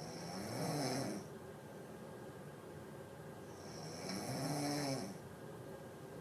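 A sleeping person snoring: two drawn-out snores about three and a half seconds apart, each a low rasping hum that rises and falls in pitch, with a breathy hiss.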